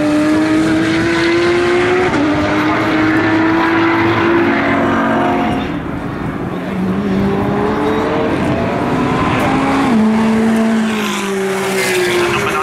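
Porsche 911 GT3 Cup (991.2) race car's 4.0-litre flat-six engine pulling hard through the gears: the pitch climbs and then drops back at each upshift, with a brief lift and dip in level about six seconds in.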